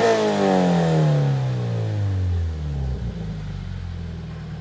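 Scion FR-S's flat-four engine through an MXP Comp RS cat-back exhaust, revs falling away from a blip and settling to a steady idle after about three seconds.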